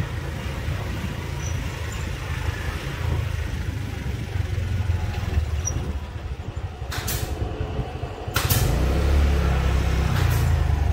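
Steady low rumble of wind buffeting the microphone and a running vehicle engine while moving along a lane, growing louder near the end. Three short hissing bursts come at about 7, 8.5 and 10 seconds in.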